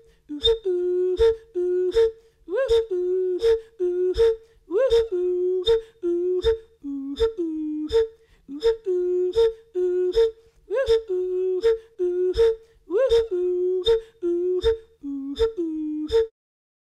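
Background music: a short two-note figure repeated about once every three-quarters of a second, each note with a sharp attack, a few notes sliding up in pitch. It stops about a second before the end.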